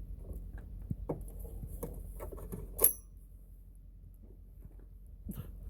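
Screwdriver prying at the metal retaining clip on a rear-hatch gas lift support's ball socket: a run of small clicks and scrapes, then a sharp metallic snap with a brief ring about three seconds in as the clip pops free.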